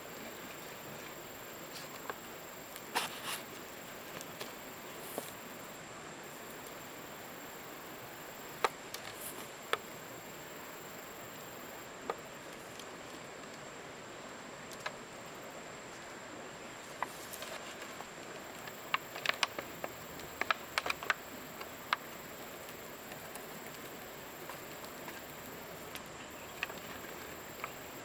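Scattered light clicks and taps, clustering about two-thirds of the way through, over a steady outdoor hiss with a thin, steady high-pitched tone.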